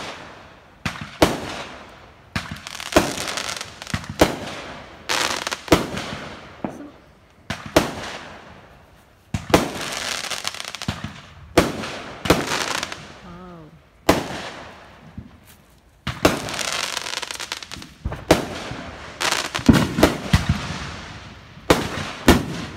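Aerial fireworks bursting one after another, a sharp bang every second or two, each dying away over a second or so.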